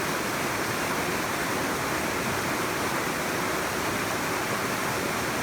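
Mountain valley stream, its water rushing steadily with an even, unbroken roar.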